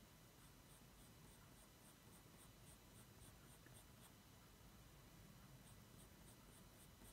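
Coloured pencil scratching faintly on drawing paper in quick, short shading strokes, about four a second. The strokes pause for a second or two about halfway through, then start again.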